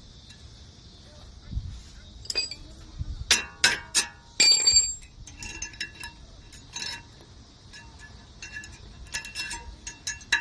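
Thin metal brake-pad hardware clips being pulled off the caliper bracket and handled, clinking and ringing in a scatter of sharp metallic clicks. The loudest is a ringing clink about four and a half seconds in.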